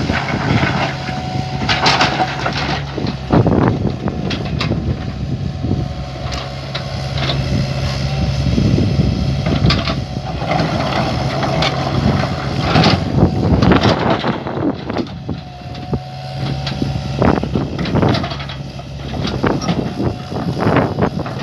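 U48 mini excavator's engine running steadily, with a higher whine that comes and goes and frequent clanks and knocks of metal throughout as the machine works.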